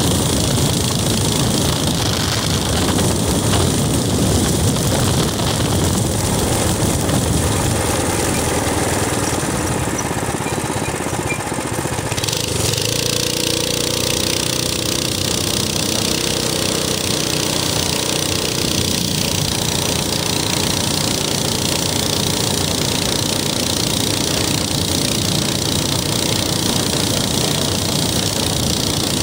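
Minibike's small engine running steadily while riding, under a constant rush of wind noise on the microphone. Its note steadies and shifts in pitch about halfway through.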